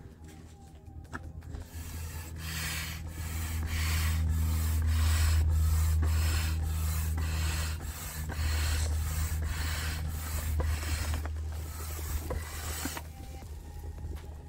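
Hand air pump worked in a steady rhythm of strokes, each a rushing whoosh of air, inflating an inflatable kayak seat. The pumping starts about a second and a half in and stops shortly before the end.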